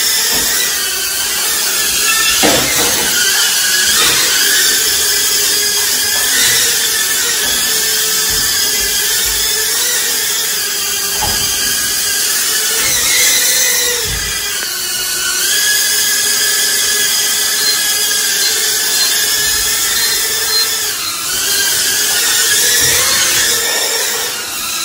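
Small remote-control toy drone's two propeller motors whining steadily in flight, the pitch wavering with throttle and dipping briefly about halfway through before picking up again.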